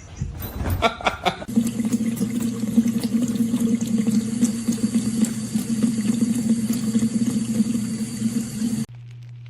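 Water running steadily, as from a tap, after a few clicks; it cuts off suddenly near the end, leaving a low hum.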